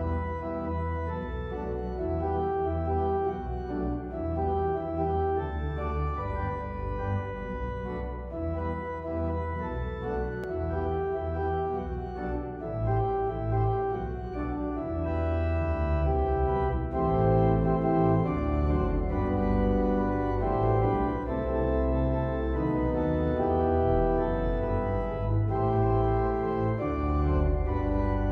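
Organ playing a hymn tune in sustained chords over a pedal bass line, getting louder about halfway through.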